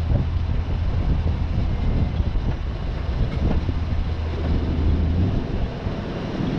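Heavy logging equipment engine running steadily with a low drone; its note changes about five seconds in.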